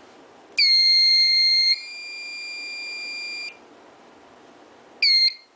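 A Notifier SFP-10UD fire alarm control panel's built-in piezo sounder beeping. A long, high, pure tone starts just after the beginning and drops to a quieter tone about a second later before stopping. One short beep follows near the end.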